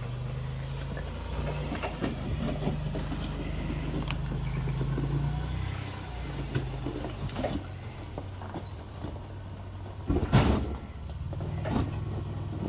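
Engine of a one-ton-axle-swapped third-generation Toyota 4Runner running at low revs while rock crawling, coming up on the throttle for a few seconds and easing off, with scattered clicks and a single loud clunk about ten seconds in.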